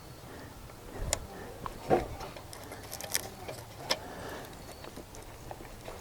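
Scattered small plastic clicks and knocks, a few seconds apart, as a coil pack's electrical connector and its gray locking keeper are worked loose by hand.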